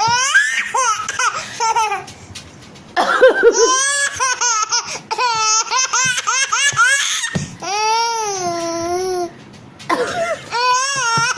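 A baby laughing in repeated bouts of high-pitched, coughing laughter, with short pauses between bouts and one longer drawn-out call near the middle.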